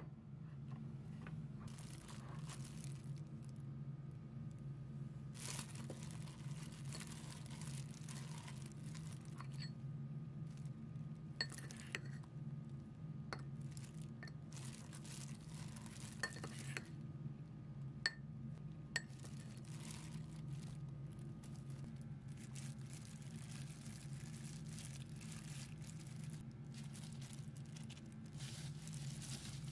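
A metal spoon clinks against a ceramic cup several times while a rice ball is rolled in flour, with rustling of gloved hands and breadcrumbs as it is coated. A steady low hum runs underneath.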